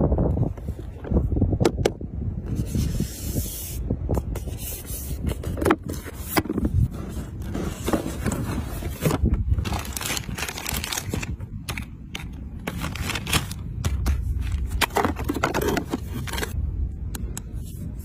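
Hands handling a cardboard box and its packaging: repeated scraping, crackling and rustling with short clicks as flaps and wrapped parts are moved and lifted out.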